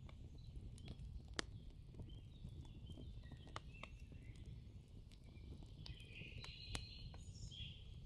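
Faint background ambience: a low hum with scattered soft clicks and faint short high chirps.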